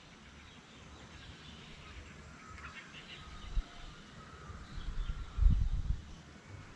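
Faint birdsong of thin chirps and short whistles, with a low rumble about five and a half seconds in.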